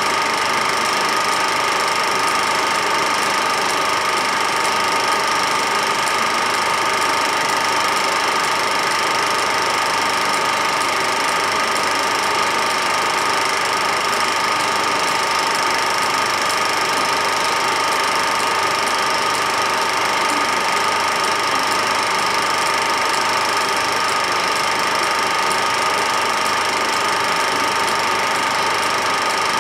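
Film projector running: a steady mechanical whirr with a constant high whine and a faint rapid clatter from the film transport.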